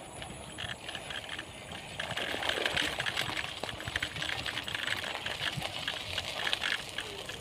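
Ride noise of a bicycle: a steady run of small irregular clicks and rattles from the bike and its tyres on a rough gravel and concrete path, getting louder about two seconds in.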